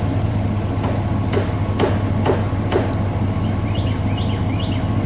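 Four sharp knocks, about two a second, as fittings are worked onto a submersible well pump's drop pipe, over the steady hum of an idling engine. A few short, high chirps follow near the end.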